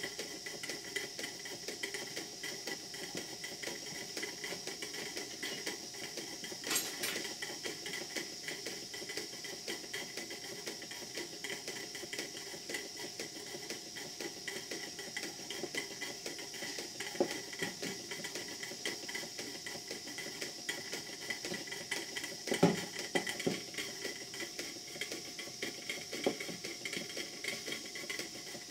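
A twin model steam plant running on live steam, a hypocycloidal (Cyclope) engine and a Vulcan beam engine: a steady hiss of steam with fast, even mechanical clatter from the running engines. A few sharper clicks come along the way, the loudest about two-thirds of the way through.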